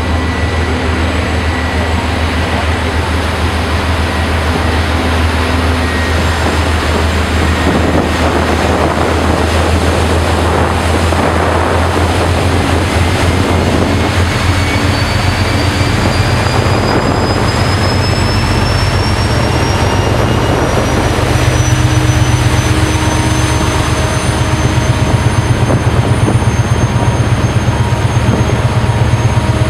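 Tugboat's diesel engines running with a steady low drone under a rushing noise. A faint high whine climbs slowly in pitch around the middle, and the drone grows a little louder about two-thirds of the way through.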